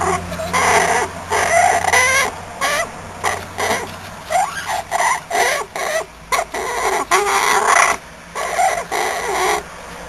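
Baby yellow-naped amazon parrot making a run of short, repeated calls that rise and fall in pitch, with a brief pause about eight seconds in.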